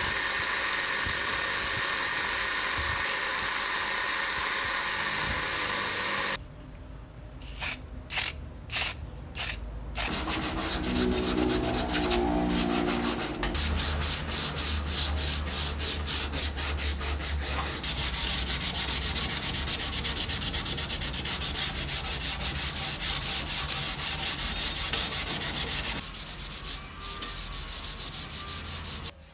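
A bench grinder's buffing wheel runs steadily, then cuts off about six seconds in. After a few separate strokes, a flat metal strip is sanded by hand in quick, even back-and-forth strokes, louder from about the middle on.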